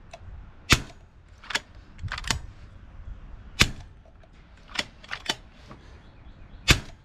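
Daystate Red Wolf .25 calibre PCP air rifle fired three times, about three seconds apart. Between shots come two softer clicks as the action is worked back and forth to cock the rifle and index the high-capacity magazine.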